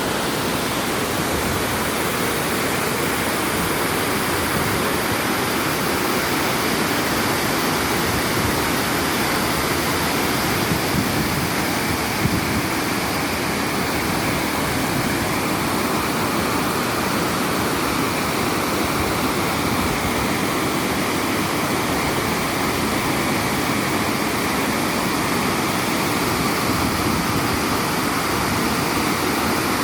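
River water rushing, a steady, unbroken noise.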